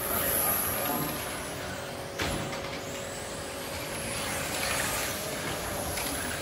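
1:10 electric RC touring cars with 17.5-turn brushless motors running laps on a carpet track, a high-pitched whine that swells and fades as the cars pass. A single sharp knock about two seconds in.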